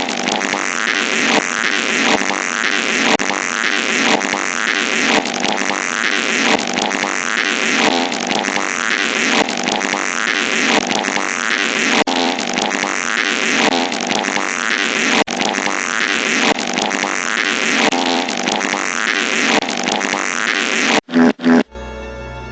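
Fart noises made into a microphone and played in reverse: a continuous raspy buzzing that swells and then breaks off sharply, over and over, a little more than once a second. Near the end come two loud short blasts, and then music with held tones starts.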